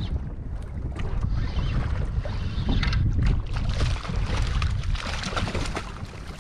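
Wind buffeting the microphone on a small open boat at sea, a steady rumble with a few light knocks.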